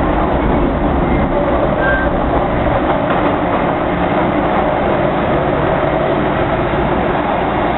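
MTR Kwun Tong Line M-Train (car C278) running between stations: a steady rumble of traction motors and wheels on rail, with a few faint humming tones.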